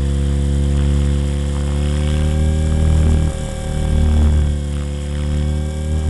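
Electric Blade 400 RC helicopter in flight, heard close up: a steady humming whine from its motor, gears and spinning rotors, wavering slightly in pitch and level around the middle.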